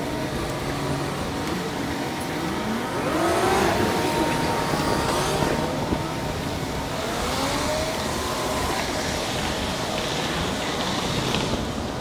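Steady wind and rolling noise from a camera riding along on a moving bicycle. A few wavering whines rise and fall in pitch through it, about a third of the way in and again past the middle.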